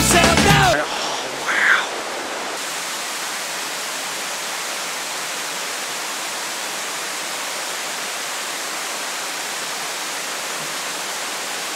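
Steady, even rush of a waterfall, after background music cuts off about a second in.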